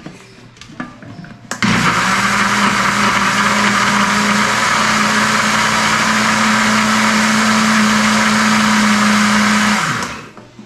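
Electric kitchen blender switched on about a second and a half in, running at one steady speed as it purées mango with coconut water, then switched off near the end and winding down. A few small handling clicks come before it starts.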